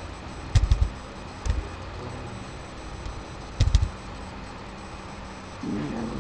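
Computer keyboard keys being pressed: a quick run of three clicks, a single click, then another run of three, over a steady electrical hum.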